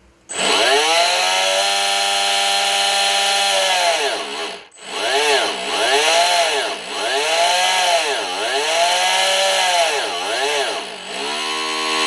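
Small electric RC motor spun up under throttle, giving a steady whine. It drops out briefly near the middle, then its speed swings up and down several times before holding steady again.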